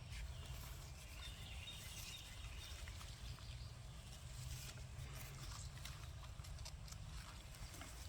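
Quiet outdoor ambience: a steady low rumble with scattered light clicks and ticks, and a faint thin high tone about a second in that lasts a couple of seconds.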